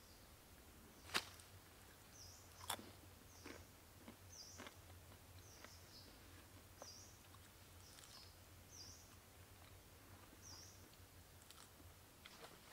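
Quiet jungle ambience: a small animal's short high chirp repeated about once a second, with a few sharp cracks in the first five seconds, the loudest a little after the start.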